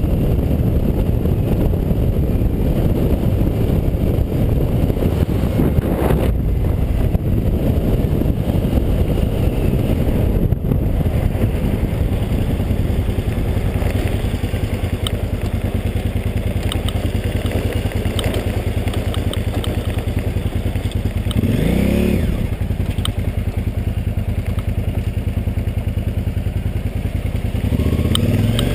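KTM 990's V-twin engine running steadily as the motorcycle rides. In the second half, short clicks and clatter come from the tyres on the rough salt crust. About 22 s in the revs rise and fall once, and near the end they climb again.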